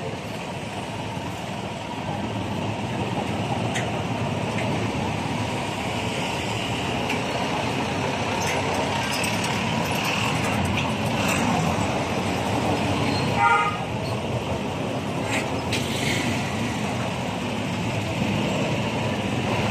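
Busy city street traffic: vehicle engines and tyres making a steady noise, with a short vehicle horn toot about two-thirds of the way through.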